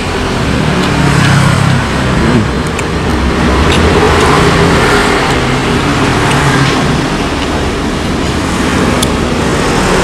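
Road traffic noise, a continuous low rumble that swells and eases, loudest about four to five seconds in.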